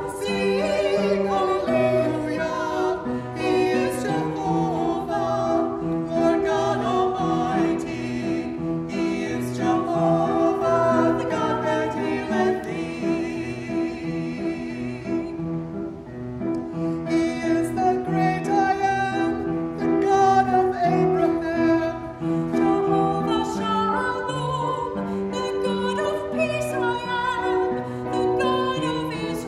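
Two women singing a duet, with held chords accompanying them.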